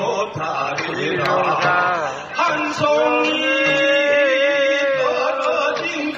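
A man singing live over band accompaniment through the stage PA, holding one long, slightly wavering note for about three seconds midway.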